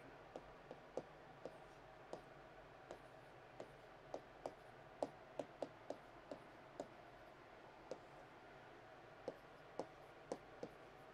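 Chalk writing on a chalkboard: irregular sharp taps and clicks of the chalk striking the board as letters are formed, a few per second and most frequent in the middle.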